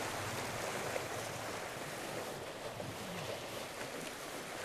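Sea waves washing against a rocky shore, with wind, a steady even rush of noise.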